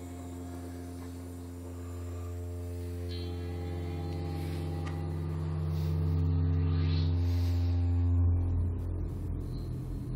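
Modular synthesizer drone fed through cassette tape feedback: a low humming tone with several steady higher tones above it, swelling louder over the first eight seconds. About eight seconds in the low tone drops away and the sound turns rougher and grainier.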